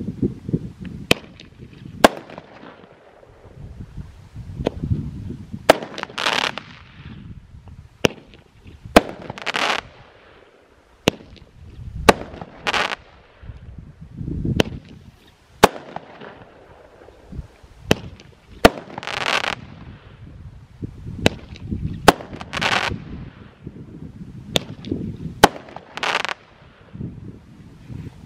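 Consumer firework cakes from Bright Star's The Six Pack firing shot after shot: sharp bangs every second or two, several of them followed by a hissing crackle about a second long, over a low rumble.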